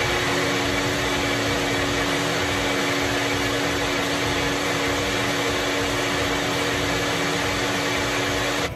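NutriBullet Rx blender running at full speed, whirring steadily as it purées corn kernels into a liquid cake batter. The motor shuts off abruptly right at the end.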